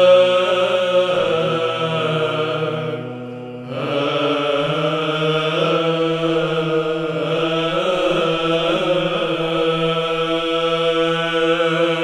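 Orthodox church chant: voices singing a drawn-out melodic line over a steady held low drone, with a brief dip about three seconds in before the singing resumes.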